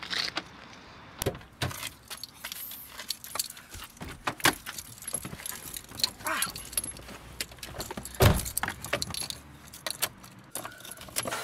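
Car keys jangling and clicking again and again as they are handled, with a heavy thump about eight seconds in as the car door shuts.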